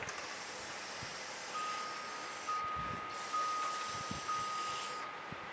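A single-pitched electronic alarm tone, restarting about once a second, over a steady wind-like hiss.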